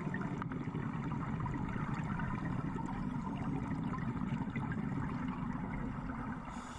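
Muffled underwater ambience heard through a camera housing: a steady low rush of water with faint scattered crackling.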